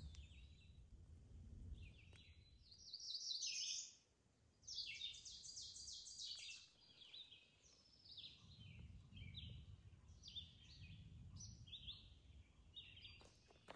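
Songbirds singing faintly in woodland, in short phrases of rapid high notes one after another.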